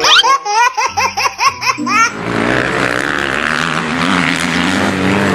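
A chimpanzee sound effect: a quick run of whooping, laughing hoots, about four a second, lasting about two seconds. Then a motorcycle engine sound effect starts and runs steadily.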